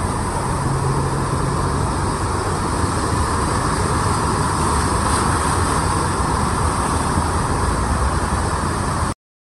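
Cars driving through deep floodwater, their tyres throwing up spray over a steady rush of water, with engines running under it. The sound cuts off suddenly near the end.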